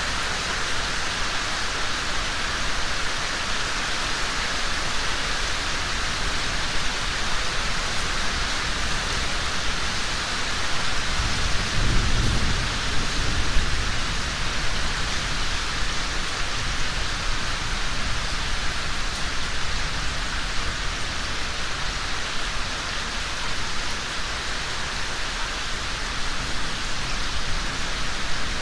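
Steady rain falling, with a low rumble of thunder swelling and fading about twelve seconds in.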